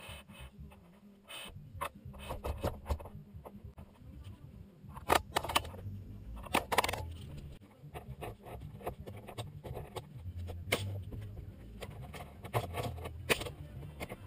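Scattered knocks, clicks and scrapes of a wooden joist and hand tools being handled, with a couple of louder knocks about five and seven seconds in, over a low rumble.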